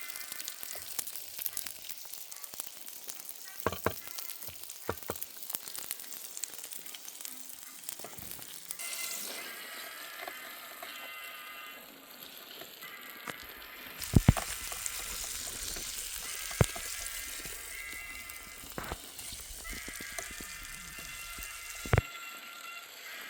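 Steak sizzling on a hot cooking stone, under background music, with a few sharp knocks.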